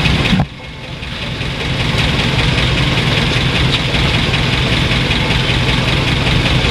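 1955 Ford's engine running steadily, in gear with the drive wheels spinning. The sound dips sharply about half a second in, then builds back up over the next second or so.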